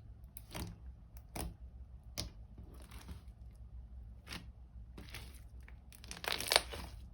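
Homemade glue slime squeezed and stretched by hand, giving short wet pops and crackles about once a second, with a louder burst of crackling near the end.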